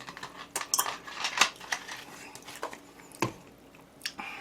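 Eating utensils handling food on dishes: an irregular series of short, sharp clicks and taps, the strongest about a second and a half in and again just after three seconds.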